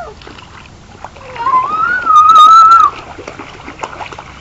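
Children's feet splashing through shallow rain floodwater, with a child's long, high-pitched squeal starting about a second and a half in and breaking off near three seconds, the loudest sound.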